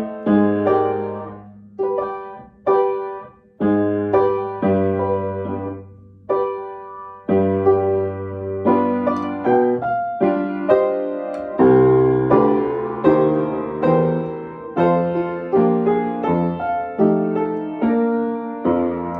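Piano being sight-read: chords struck one at a time and left to ring and die away, with pauses between them at first, the playing becoming steadier and fuller about halfway through.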